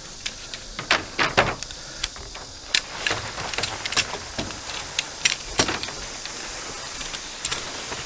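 Steady hiss of rain with scattered sharp clicks and knocks.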